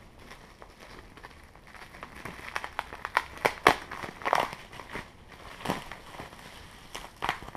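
Plastic packaging crinkling and crackling as it is handled, with scattered sharp clicks, busiest and loudest about three to four and a half seconds in.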